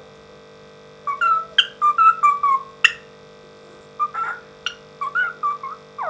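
African grey parrot whistling and chattering in two short bouts of gliding notes mixed with sharp clicks, the first about a second in and the second about four seconds in. A steady electrical hum runs underneath.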